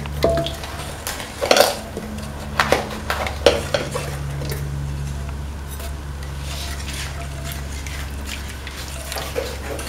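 A utensil stirring a thick coconut-milk and beaten-rice mixture in a metal pan, scraping and clinking against the pan, with a cluster of clinks in the first few seconds and fewer later on. A steady low hum runs underneath.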